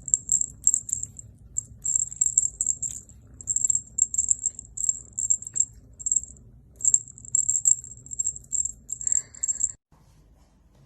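A small jingle bell shaken in quick, irregular bursts of jingling, which stop abruptly near the end.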